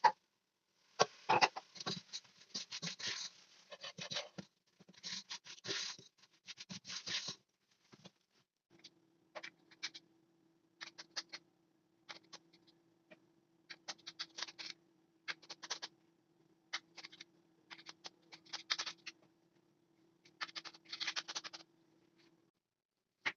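Kitchen food-preparation handling sounds: irregular scratchy rustles, scrapes and light clicks, in short clusters. A faint steady hum comes in about nine seconds in and stops shortly before the end.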